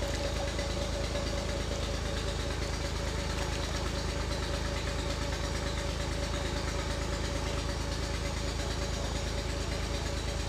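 An engine running steadily at idle, with an even low chugging and a constant hum.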